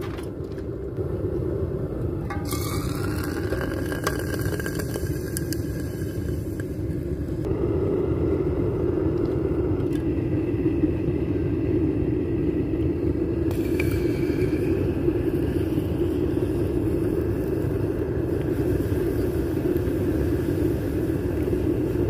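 Gas-fired furnace burner running: a steady low rush of propane flame inside a homemade foundry, a little louder from about eight seconds in.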